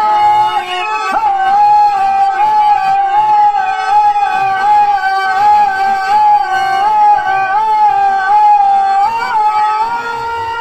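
Male stage actor singing a Telugu drama verse (padyam) through a microphone and PA, drawing out one long high note with small ornamental wavers that steps up a little near the end, over a steady lower accompanying note.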